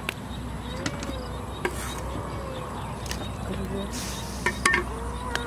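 A few light clicks and knocks from cooking as ingredients go into an aluminium pot over a wood fire. Faint soft calls are heard in the background over a steady low hum.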